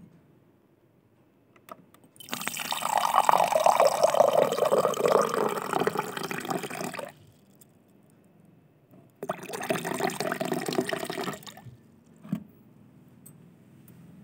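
Water running or pouring in two spells, a longer one of about five seconds and a shorter one of about two seconds, with a quiet gap between.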